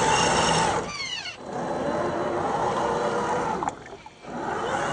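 1/10-scale RC crawler truck's electric motor and drivetrain whining. About a second in, the whine falls steeply in pitch and drops away briefly, and near the end the sound cuts out again for a moment.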